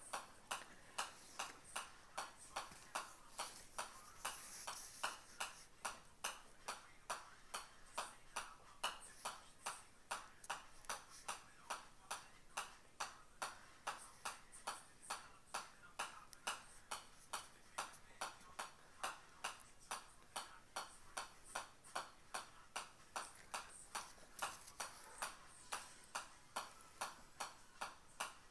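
Golf ball bouncing on the face of a pitching wedge, a sharp metallic tick with each hit, a little over two hits a second in an even rhythm.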